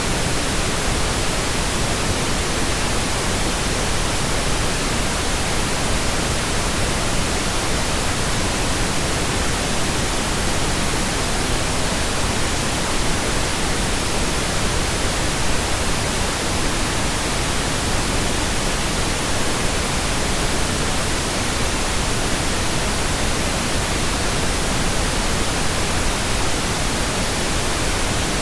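Steady pink noise, digitally generated: an even, unchanging hiss spread across all pitches.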